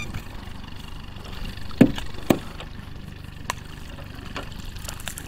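Boat motor idling with a steady low hum, while a redclaw pot's rope and float are handled, giving a few sharp knocks about two seconds in and one more a little later.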